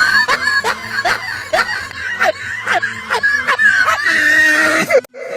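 Edited meme laugh sound effect: a run of laughing syllables, about two a second, each with a sliding pitch, cutting off abruptly near the end.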